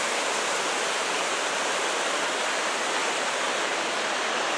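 Waterfall crashing through a narrow rock channel about five feet wide: a loud, steady rush of water.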